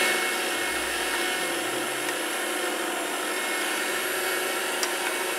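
Electric meat grinder running steadily, its motor driving the auger that pushes black currants through a coarse grinding plate.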